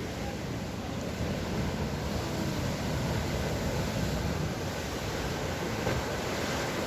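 Atlantic Ocean surf breaking and washing on the shore: a steady rush of noise that swells slightly over the first couple of seconds.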